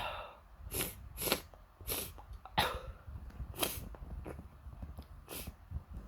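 A person sneezing repeatedly in a fit: about seven short, sharp sneezes in quick succession, with a longer pause before the last.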